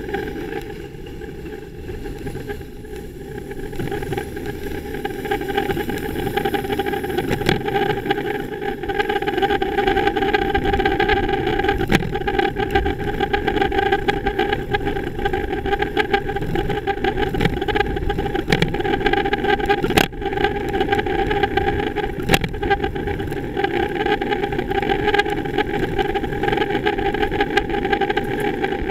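City road traffic heard from a moving bicycle: a steady engine hum and rumble, growing louder over the first few seconds, with a few sharp knocks.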